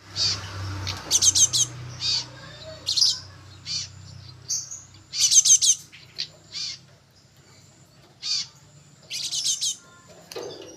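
Young cinereous tit (gelatik batu) calling: single high chirps broken up by quick runs of rapidly repeated notes, the loudest runs about 1, 5 and 9 seconds in.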